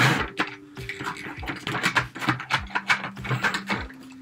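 Small plastic toy parts clicking and tapping as an action figure is pushed into a toy car's seat, with soft held musical notes underneath.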